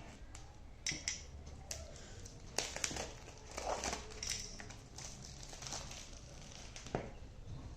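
Packaging of a smartphone box being opened by hand: the plastic seal and wrap crinkling and tearing, with irregular rustling and several sharp clicks and snaps.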